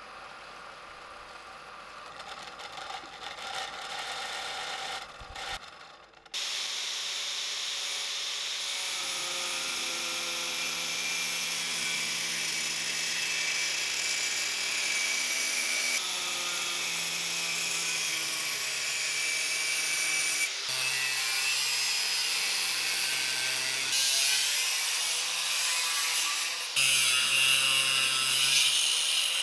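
Electric power tool running under load, with a steady motor hum and a harsh, hissing working noise; the motor's pitch drops and recovers several times. It starts about six seconds in, after a few seconds of quieter rattling and handling noise, and cuts off suddenly at the end.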